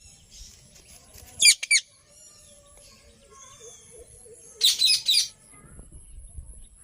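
Indian ringneck parakeet screeching: two or three loud, shrill calls about a second and a half in and a quick run of several more about four and a half seconds in, with softer chirps between.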